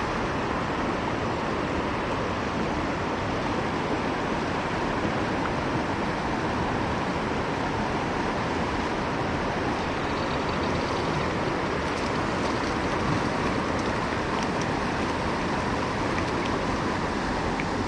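A river's current rushing steadily.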